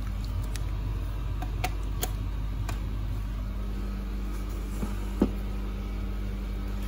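Steady low hum of room noise, with a few faint clicks and one sharper knock about five seconds in, from handling.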